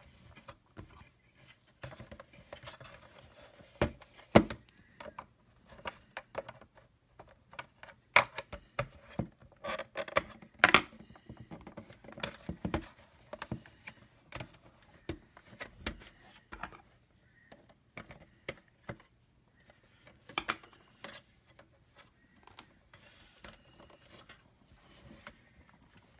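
Irregular clicks, taps and knocks of hard plastic as a Black & Decker cordless hand vacuum's plastic housing is handled and pried apart at its seams, with a few louder knocks among them.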